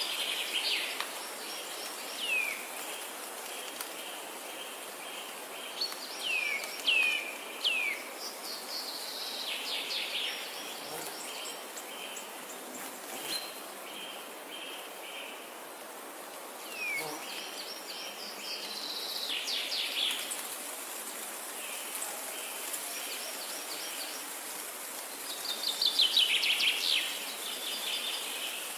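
Wild birds calling: short falling whistles and fast stuttering trills, repeated every few seconds and loudest near the end, over a steady hiss of outdoor background noise.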